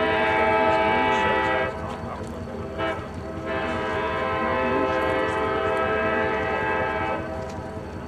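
Nathan Airchime K-5LAR24 five-chime locomotive air horn on an Alco C420 sounding its chord in two long blasts: the first cuts off a little under two seconds in, and the second starts about a second and a half later and holds for nearly four seconds. A low rumble runs underneath.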